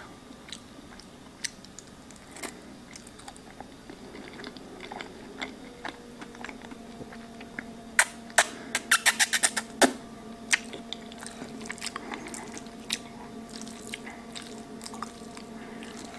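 Close-up mouth sounds of a person eating creamy pasta: wet chewing and lip smacks, with a quick run of loud smacking clicks about eight seconds in as a noodle is sucked in. A faint steady hum runs underneath from about midway.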